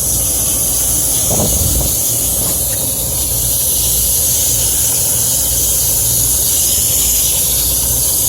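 Water from a hose spray nozzle hissing steadily as it is sprayed through an HVAC unit's coil, rinsing out dirt and cottonwood fluff. A low steady hum runs underneath.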